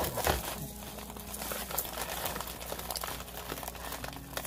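Thin plastic food bag crinkling and rustling as hands handle and open it, with many short, sharp crackles.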